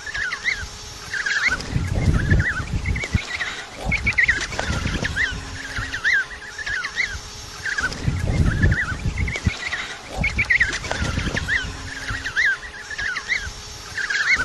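Many penguins calling at once in a colony, a dense chatter of short overlapping calls. Low rumbling noise swells and fades every few seconds underneath.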